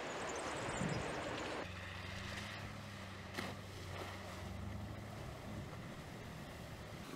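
Mercedes-Benz G-Class driving: tyre and wind noise on a gravel track, which cuts off about a second and a half in. A steady low engine hum follows as the SUV creeps through a water crossing, with one sharp click about three and a half seconds in.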